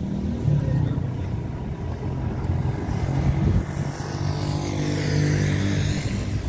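A vehicle engine running steadily close by with a low hum, and a second vehicle going past about four to six seconds in.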